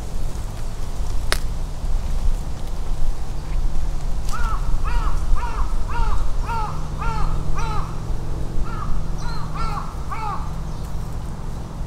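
Crow cawing: a quick run of harsh caws, two to three a second, starting about four seconds in, with a short break midway, over a steady low rumble. A single sharp click about a second in.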